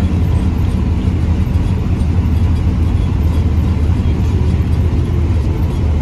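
Steady engine and road rumble heard from inside a moving vehicle: a deep, even drone with noise above it.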